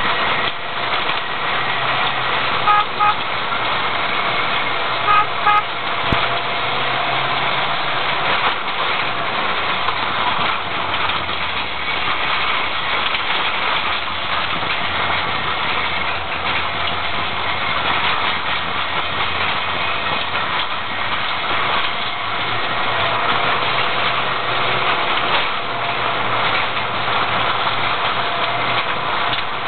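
Car engine and road noise heard from inside the cabin while driving a rough lane, the engine note shifting with gear and speed. Two short double beeps sound about three and five seconds in.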